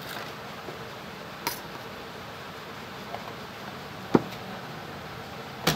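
Three sharp clicks and taps of small metal hand tools, tweezers and a soldering iron, knocking against each other and the workbench, the loudest about four seconds in, over a steady faint hiss.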